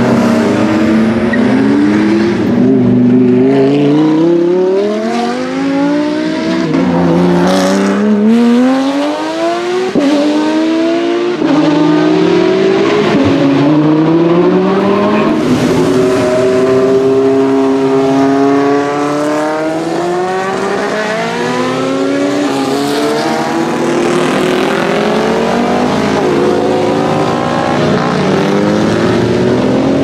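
Sports car engines accelerating hard through the gears, the engine pitch climbing and falling back sharply at each upshift, several times over.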